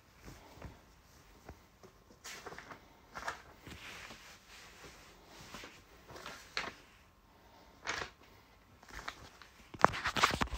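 Faint, scattered knocks and rustles in a small room, with a louder flurry of clicks and rustling near the end.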